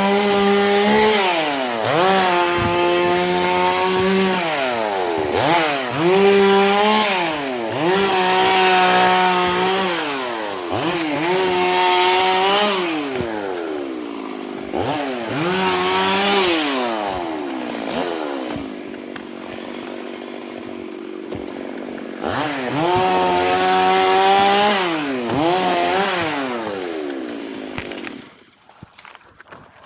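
Two-stroke chainsaw cutting into a teak trunk at high revs. Every couple of seconds its pitch dips and climbs back as it is throttled down and up again. It is lower and quieter for a few seconds in the middle, then stops about two seconds before the end.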